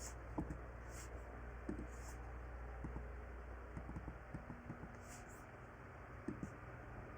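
Scattered computer mouse clicks and keyboard taps, irregular and quiet, over a steady low electrical hum.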